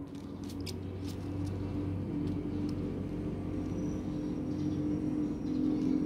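A steady low hum, growing gradually louder, with a few faint clicks in the first couple of seconds.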